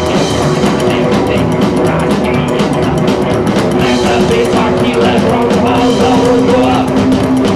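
A live rock band playing loudly, with a male lead singer singing into the microphone over the band; he holds a long note near the end.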